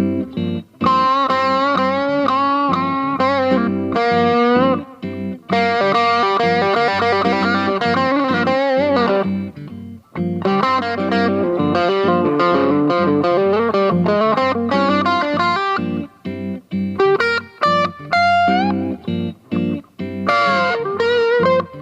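Aria Pro II PE electric guitar played through an amplifier: sustained chords and single-note lines with string bends and vibrato. It turns to shorter, choppier notes about three quarters of the way through.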